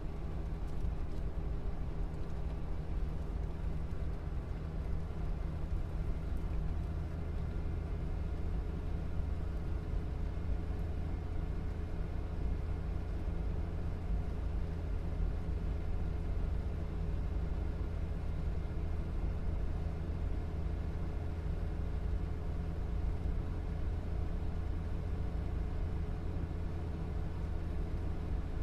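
Air handling unit's blower and motor running: a steady low hum with a few constant tones.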